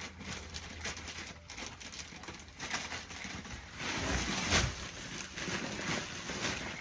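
Wood-shaving bedding rustling and scraping in a brood box as it is scooped and spread by hand, a dense run of small crackles and scrapes that is loudest about four seconds in.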